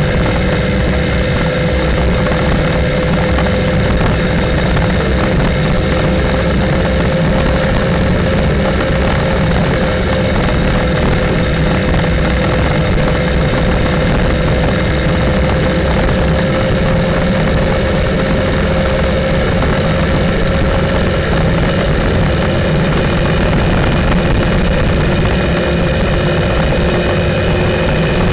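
Motorcycle engine running at a steady cruise, its note holding nearly constant, over a continuous low rumble of wind and road noise.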